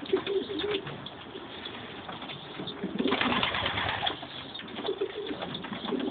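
Racing pigeons cooing, with scattered short clicks and a second-long burst of rustling about halfway through.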